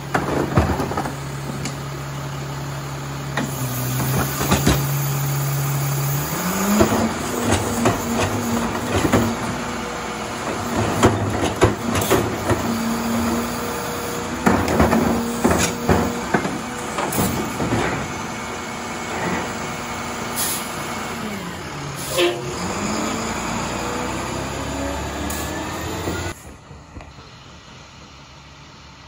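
International MaxxForce diesel of a Labrie Expert side-loader garbage truck idling, then speeding up about six seconds in to drive the hydraulics as a trash cart is tipped into the hopper, with repeated clanks and bangs of the cart and tipper. The engine drops back to idle about 22 seconds in, and the sound falls off sharply near the end.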